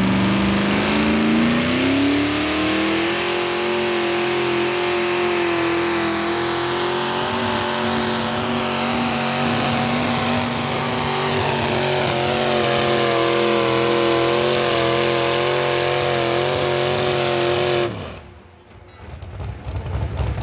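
Small-block V8 of a modified pulling tractor at full throttle under load: the revs climb over the first few seconds, then hold high and steady. The sound cuts off sharply near the end.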